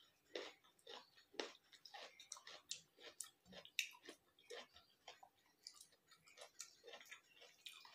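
Faint eating sounds of vegetable khichdi eaten by hand: an irregular run of soft chewing and mouth clicks, a few a second.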